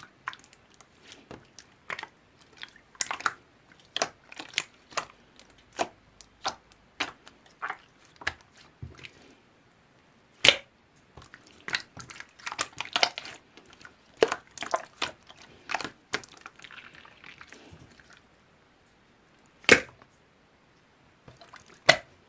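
Irregular small clicks and taps, a few each second, with single louder sharp clicks about halfway through and twice near the end.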